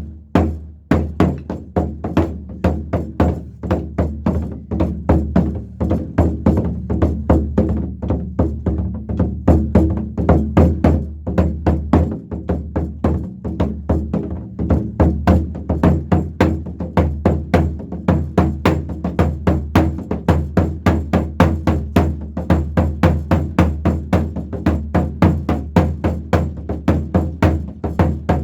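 A Korean buk drum struck rapidly with sticks in a steady galloping horse-hoof rhythm, sharp clicky strokes over deep drum thuds, several strokes a second throughout.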